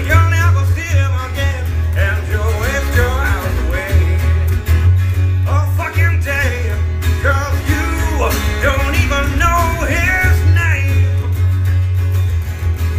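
A strummed twelve-string acoustic guitar and an electric bass guitar holding low notes play a rock song together, with a voice singing the melody over them.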